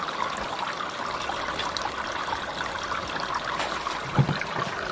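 Kitchen faucet running in a steady stream into a plastic basin of water while raw shrimp are rinsed by hand, with light splashing. A short thump about four seconds in.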